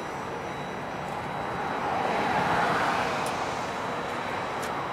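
Road traffic noise that swells as a vehicle passes, loudest about halfway through, then fades. A few faint clicks come near the end.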